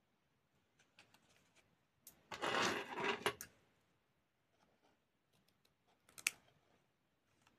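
Rustling handling noise, loudest in a burst of about a second some two seconds in, as a small doll garment and scissors are handled. Then a single sharp snip of small scissors about six seconds in, cutting off the garment's care label.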